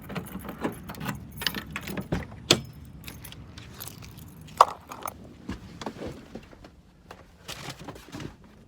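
Scattered light clicks and rattles inside a moving car over a faint low road hum, with one brief high blip about halfway.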